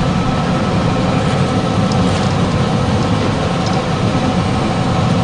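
400-model wood pellet mill running under load, pressing sawdust into pellets: a steady mechanical rattle over a constant hum.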